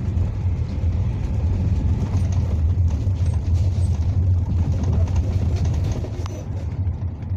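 Cabin noise inside a moving NEFAZ city bus: a steady low engine drone with road and tyre rumble, easing slightly near the end.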